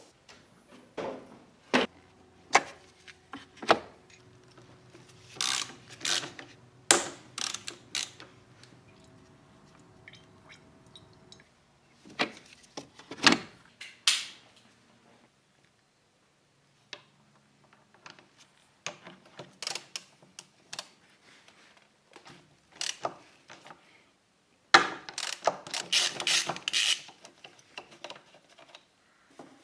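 Hand tools working on a motorcycle's front brake: scattered metal clicks, clinks and ratcheting in short runs, with a faint steady hum under the first third. The sound cuts off and restarts abruptly, as in time-lapse footage, with the busiest clatter near the end.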